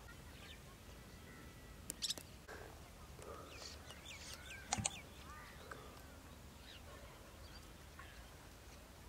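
Quiet outdoor ambience with scattered bird chirps, most of them between about three and five seconds in, and a few short sharp clicks around two and five seconds in.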